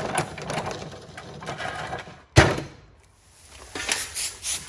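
A lawn tractor mower deck dragged and rattling over a gravel driveway, with one sharp loud knock about halfway through, then footsteps crunching on the gravel near the end.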